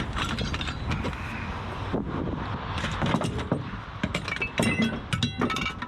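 Scrap metal pieces, aluminum strips among them, knocking and clanking as they are handled and pulled out of a dumpster, with several bright ringing metallic clinks near the end.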